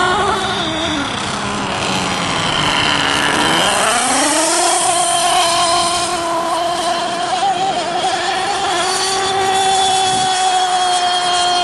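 Nitro two-stroke .90-size engine of an RC racing boat, running at high revs through a QFE 1467 tuned pipe with a steady high-pitched wail. Its pitch sags over the first few seconds and climbs quickly back at about four seconds in, as the throttle comes off and on again, then holds high.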